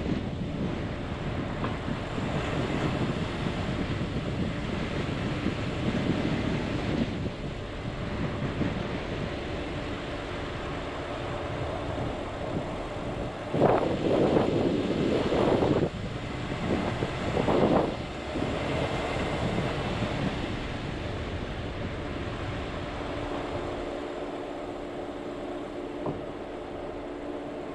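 Vehicle driving on a dirt road: steady engine and tyre noise with wind. There are two louder swells of noise about halfway through, a longer one of about two seconds and then a shorter one.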